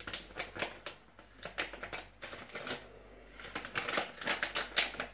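Whole coriander seeds spooned from a plastic bag into the steel cup of an electric spice grinder: quick irregular clicks and rattles of seeds and spoon against the cup, with a short lull about halfway through.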